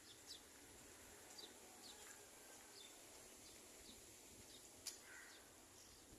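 Near silence, with faint high chirps of a small bird repeated every half second or so, and a single faint click about five seconds in.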